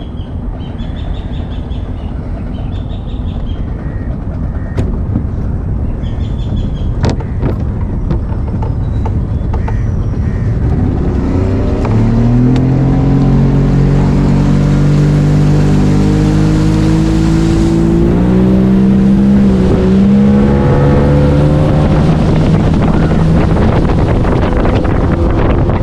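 Boat engine running, getting louder from about halfway through as a steady hum that rises slowly in pitch, over a constant rumble; faint chirping in the first few seconds.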